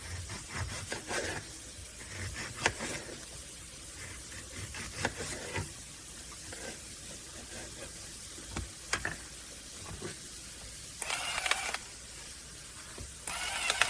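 Handling noises: scattered light clicks and scraping, with two short harsh bursts of noise near the end.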